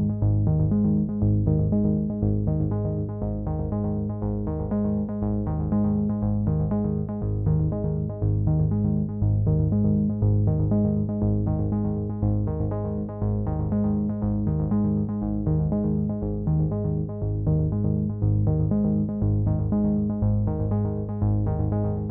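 Background music: a synthesizer track with a steady, regular pulse and a strong bass line.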